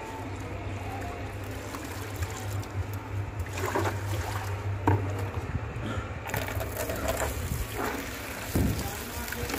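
Water splashing and sloshing as leafy greens are rinsed by hand in a plastic tub. The tub's water is tipped out a few seconds in, then water from a tap runs into it with a steady hiss, over a steady low hum.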